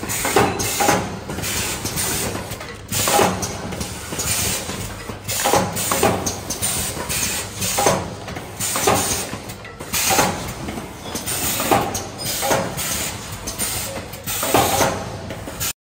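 Automatic paper boat tray forming machine running, its two forming stations cycling with repeated short bursts of hissing air and clacking, roughly once a second at uneven spacing. The sound cuts off suddenly near the end.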